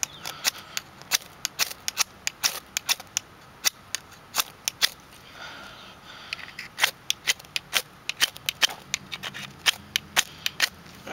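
Steel striker scraped in quick, sharp strokes down the ferrocerium rod of a magnesium fire starter, roughly two strikes a second with a short pause about five seconds in. The sparks are not catching the tinder.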